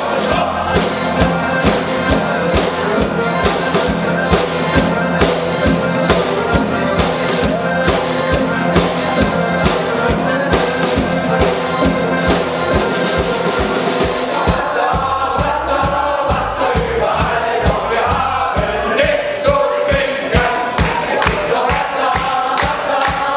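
A shanty choir of men and women singing together, accompanied by accordion and acoustic guitar over a steady beat. About two-thirds of the way in the sustained low chords drop away and the voices come forward.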